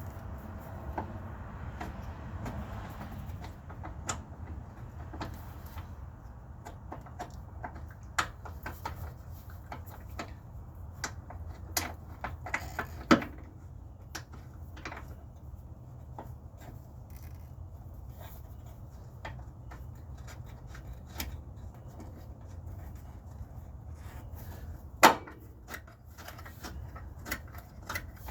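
Scattered sharp clicks and knocks of hand work, with two louder knocks about halfway through and near the end, over a steady low hum.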